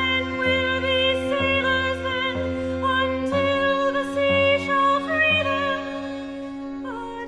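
Slow music from a small baroque string ensemble: long held notes over a steady low drone, growing softer near the end.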